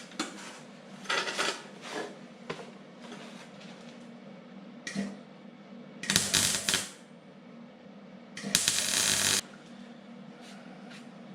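Metal bracket parts and tools handled on a workbench, with scattered clinks and knocks. Two loud, harsh bursts of under a second each come about six and eight and a half seconds in.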